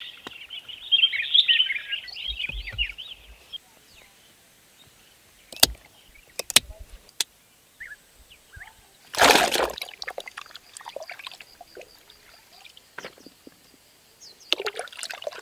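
Birds twittering for the first few seconds, then a few sharp clicks, a loud splash about nine seconds in, and water sloshing near the end as okra pods are swished by hand in a stone water trough.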